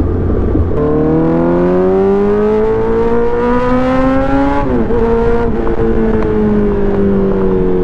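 Loud superbike engine and exhaust running on the road: the pitch climbs steadily for about four seconds, drops sharply, then slowly falls.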